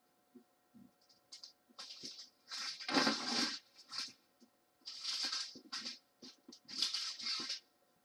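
Small plastic bags of diamond painting drills crinkling and rustling as they are picked up and moved, in irregular bursts with quiet gaps; the loudest comes about three seconds in.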